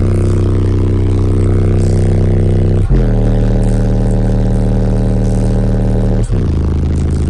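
Car audio system of eight 15-inch Avatar STU subwoofers playing loud, deep sustained bass notes that jump to a new pitch about every three seconds.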